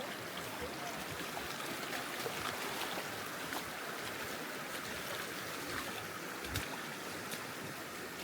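Steady rush of running water, dotted with faint small clicks, with one dull low thump about six and a half seconds in.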